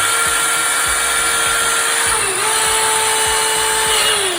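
Jaws of life (hydraulic rescue spreader) running: a steady, loud motor whine that dips in pitch briefly about two seconds in and falls in pitch as it winds down near the end.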